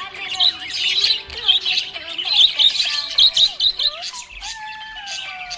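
Budgerigars chirping and warbling in quick, dense, high-pitched runs, with a lower, slowly falling tone held through the last second or so.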